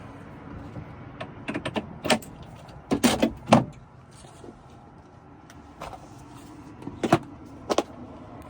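A run of separate clicks and knocks from handling things at a car, loudest in a quick cluster about three seconds in, with a few single knocks later.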